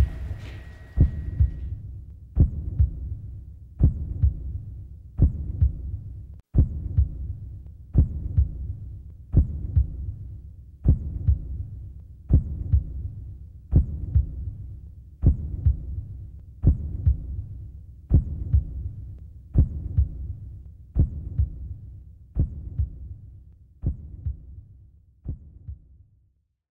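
Slow heartbeat sound effect: a steady double thump about every second and a half, growing fainter toward the end.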